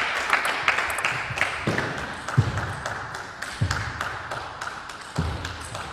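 Sharp clicks of a table tennis ball struck back and forth over the table, mixed with rhythmic clapping from the crowd, and a few low thuds in the second half.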